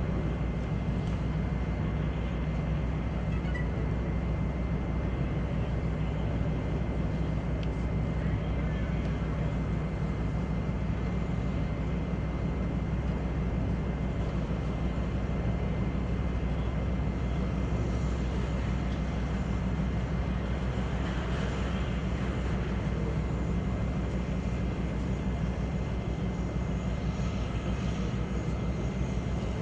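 Steady aircraft engine drone heard from inside the cabin, a deep constant hum with a thin steady whine above it.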